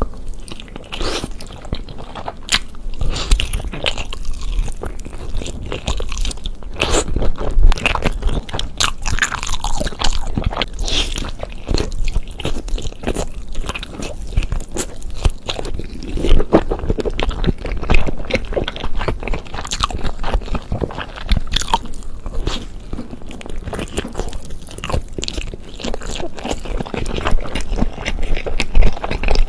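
A person biting into and chewing Jamaican chicken, a dense, irregular run of short, sharp bites and chews.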